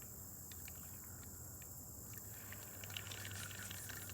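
Faint outdoor ambience: a steady high-pitched insect chorus, like crickets, over a low steady hum, with scattered light clicks.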